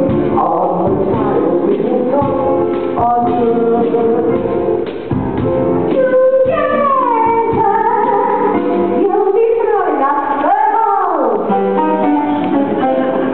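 Musical-theatre song: singing over instrumental backing, with long sung notes sliding down in pitch midway and a rising-then-falling vocal swoop a little later.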